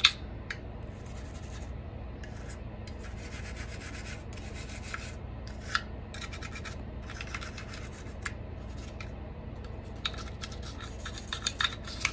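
Toothbrush bristles scrubbing a Glock 21 pistol's slide in short runs of quick scratchy strokes with brief pauses between them. A few sharp clicks of the brush or the gun being handled, the loudest right at the start.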